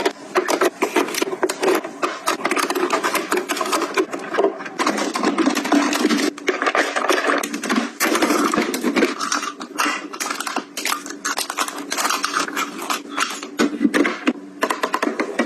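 Close-up handling noises: objects rubbed, tapped and set down, with a dense run of small clicks and rustles.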